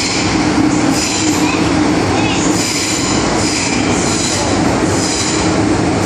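Inside the car of an MTR M-Train (Metro-Cammell electric multiple unit) running at speed through a tunnel: a steady loud rumble and roar of wheels on rail, with a high-pitched squeal that comes and goes several times.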